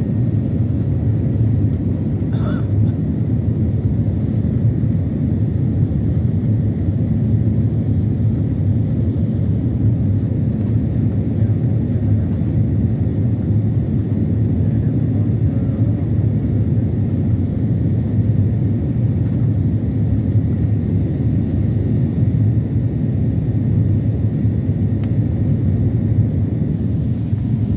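Airliner cabin noise from a window seat in flight: a steady, loud low rumble of jet engines and airflow, with a faint steady whine above it.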